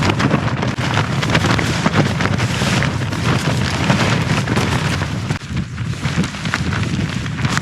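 Strong gusting wind buffeting the microphone: a loud, rough rumble broken by many quick slaps and rattles. It eases briefly about five seconds in, then picks up again.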